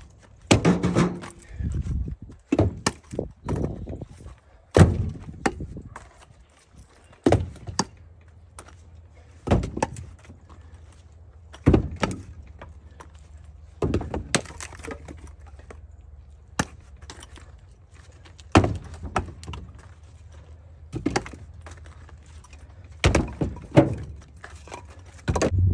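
Split firewood pieces tossed one after another into a pickup truck's bed, each landing with a sharp wooden clunk on the load, about every two seconds and sometimes two in quick succession, over a low steady hum.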